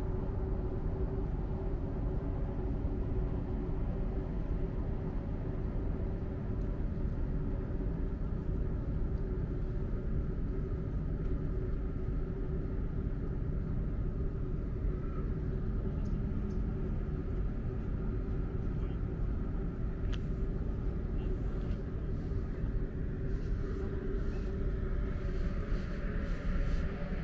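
A steady vehicle rumble with a constant low hum.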